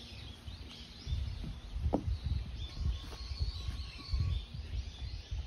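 Outdoor pond-side ambience: small birds chirping faintly, with one short rising call about two seconds in, over an irregular low rumbling that is the loudest sound.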